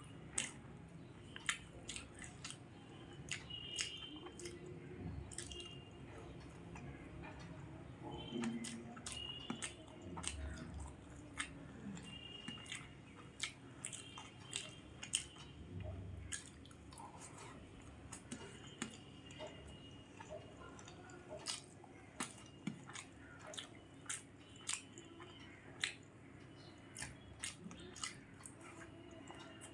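A person chewing rice and fried potato (aloo bhaja), with many sharp clicks scattered irregularly throughout.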